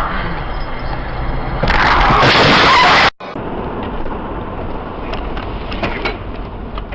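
In-car road noise, tyres and engine rumbling. About two seconds in comes a loud, harsh rushing burst that cuts off abruptly a second and a half later. Steady road rumble with a few faint clicks follows.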